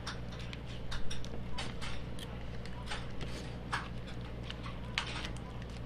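Metal spoon and fork clinking and scraping against a ceramic plate, a dozen or so irregular clicks, over a steady low hum.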